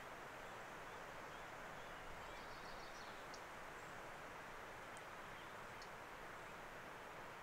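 Faint, steady outdoor ambience, an even hiss, with a few faint, short, high-pitched chirps or ticks from about three to six seconds in.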